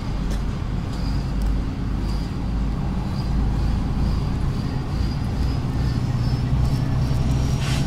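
City bus driving along, heard from inside the cabin: a steady low engine and road rumble with a faint high whine over it, and a sharp click near the end.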